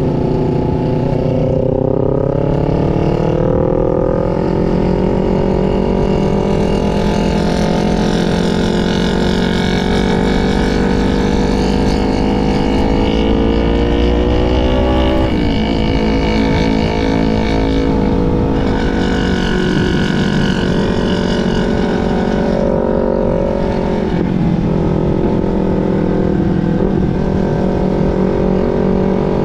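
A 250 cc parallel-twin sport motorcycle engine running under way. Its pitch climbs steadily as it accelerates, falls sharply about halfway through at a gear change, then holds fairly steady, over a low wind rumble.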